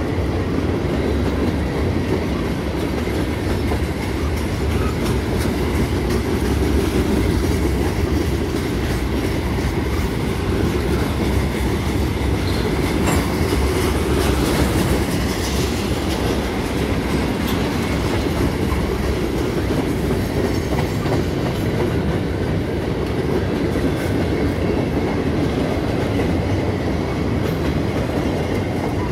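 Freight train cars (covered hoppers, tank cars and boxcars) rolling past close by: a steady, loud noise of steel wheels on rail with occasional clicks.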